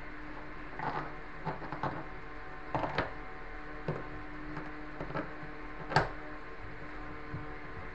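Scattered clicks and knocks of hand work on a front-loading washing machine's rubber door gasket and its steel wire clamp ring, which is being adjusted to seat fully. The sharpest knock comes about six seconds in, over a faint steady hum.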